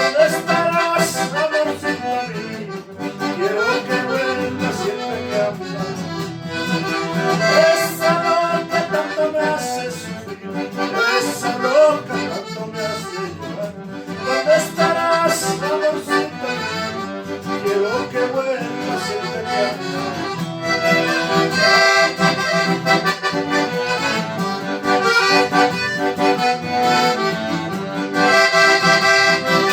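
Accordion playing a lively melody with chordal accompaniment, without a break.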